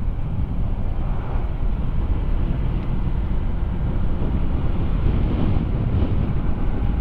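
Wind rushing over the microphone while riding a motor scooter: a steady low rumble that does not let up.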